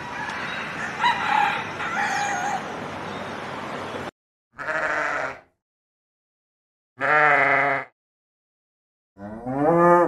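Sheep bleating: two short calls a couple of seconds apart, the second a strong quavering bleat, with another rising call starting near the end. Before them is a stretch of outdoor hiss with faint bird calls.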